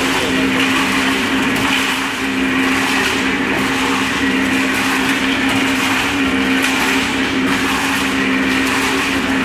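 Small electric drum concrete mixer running, a steady motor hum over a constant churning noise of the mix tumbling in the drum.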